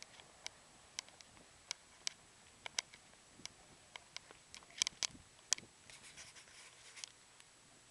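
Footsteps on a concrete sidewalk: sharp shoe clicks about two a second, uneven in spacing, with a quick cluster about five seconds in and a patch of fainter scuffing near the end.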